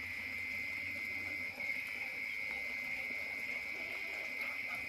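Steady, high-pitched chorus of calling animals, a continuous shrill drone that does not let up, over faint low rustling.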